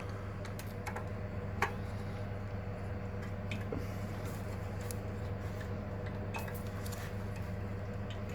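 Scattered small clicks and taps of metal parts and hand tools being handled while a small-engine carburettor's fuel pipe and throttle linkage are refitted, the sharpest click about a second and a half in, over a steady low hum.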